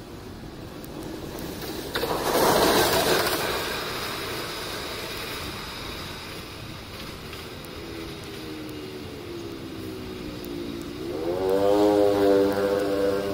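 CC 206 diesel-electric locomotive hauling a container train, its engine drone coming in and rising in pitch and loudness near the end as it powers up on approach. A brief loud rush of noise comes about two seconds in.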